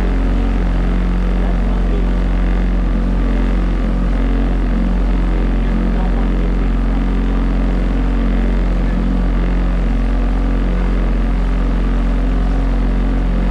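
A motorboat's engine running steadily at one even pitch, heard from on board the boat.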